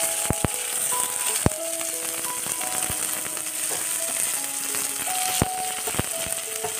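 Sliced onions sizzling as they fry in hot mustard oil in an iron wok, with a steady hiss and a few sharp clicks against the pan.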